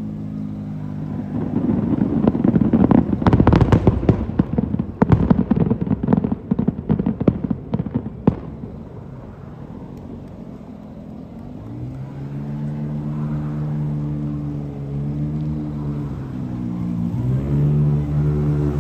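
Fireworks going off in a dense run of crackling bangs for several seconds, then dying away. After that an engine runs steadily, its pitch shifting near the end.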